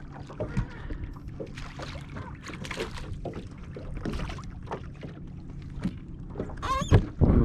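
Irregular knocks and thumps of a gaspergou (freshwater drum) flopping about in a fishing boat, over a steady low hum. There is a brief high squeak near the end.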